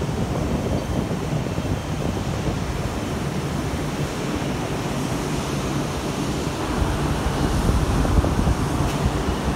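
Wind buffeting a phone's microphone high on an open tower: a steady, heavy rush that gusts a little stronger towards the end, over a faint low hum.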